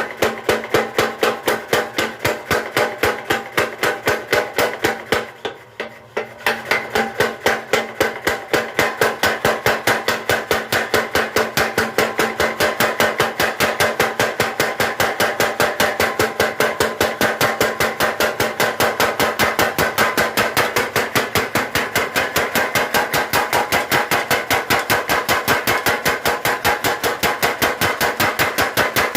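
Mechanical power hammer forging steel, pounding in a fast, even rhythm of several blows a second with a metallic ring. It pauses briefly about five seconds in, then resumes and keeps hammering steadily.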